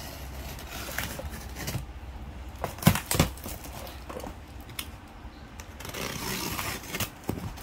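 Hands handling a taped cardboard box: scattered taps and knocks on the cardboard, two sharper knocks about three seconds in, and a soft rustle over the packing tape near the end.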